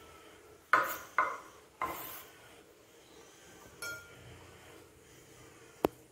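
A kitchen knife knocking and clattering against a bowl and a wooden cutting board: three sharp clatters about a second in, a clink that rings briefly near the middle, and one sharp tap near the end.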